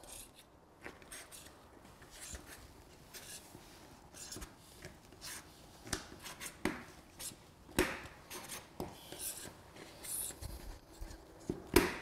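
A putty knife and pry bar working an integral door sweep out of the slot along the bottom of a door: scattered scrapes, rubs and small clicks, with a sharper knock about eight seconds in and a louder one near the end.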